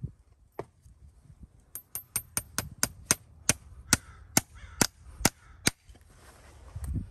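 Farrier's driving hammer nailing a horseshoe onto a horse's hoof: about a dozen sharp metallic strikes on the nail head, quick light taps to start the nail, then slower, harder blows about two a second.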